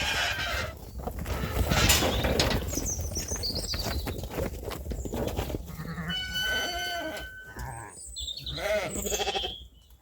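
Sheep bleating several times, the clearest calls near the end, over knocking and shuffling noise.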